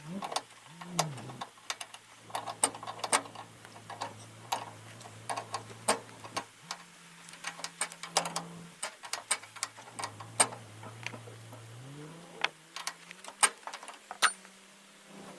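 Irregular metallic clicks and knocks of hand tools working on a square baler's needle adjustment linkage, which is stuck fast with paint. A low steady hum runs underneath and shifts in pitch a few times.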